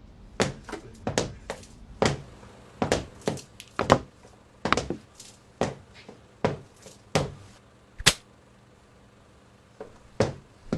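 An irregular series of sharp knocks and thunks in a small room, some coming in quick pairs, pausing for about a second and a half near the end before resuming.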